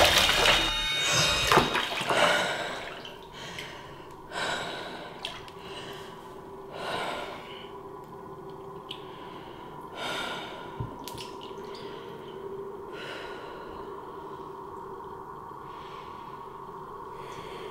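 Bathwater sloshing as a woman comes up out of the bath, then her breathing and gasps, a few seconds apart, with water dripping.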